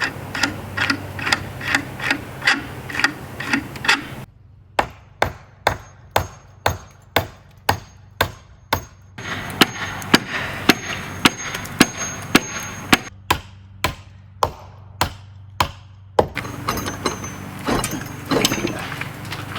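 Hammer blows struck at a steady pace, about two a second, the first few ringing with a metallic note.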